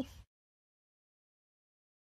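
Silence: the soundtrack goes completely blank after a falling pitched sound cuts off at the very start.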